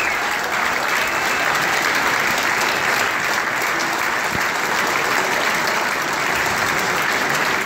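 A large seated audience applauding steadily, a dense, even clapping.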